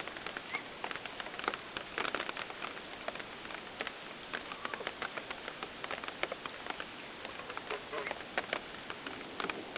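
A steady patter of many small, irregular clicks and scratches, the sound of small animals scrabbling about in their pen.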